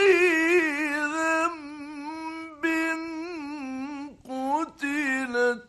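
A man's voice reciting the Quran in the melodic mujawwad style, in an old radio recording: long held notes with quavering ornaments, in a few phrases with brief breaks. The last phrase falls in pitch and stops abruptly near the end.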